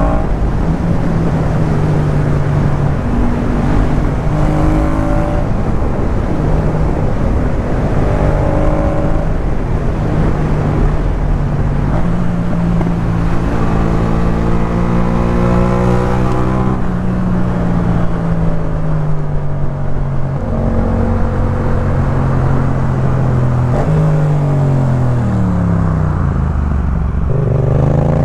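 2018 Yamaha MT-07's parallel-twin engine through a Jeskap K4 full exhaust, ridden through the gears: the engine note climbs and steps down again and again as it pulls and shifts. Near the end it falls low as the bike slows, then climbs again.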